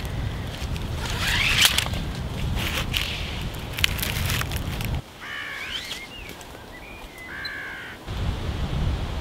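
Wind buffeting the microphone, with rustling and clicks as a webbing hammock tree strap is wrapped around a tree trunk. About five seconds in the wind cuts out abruptly and a crow caws several times over about three seconds, then the wind noise returns.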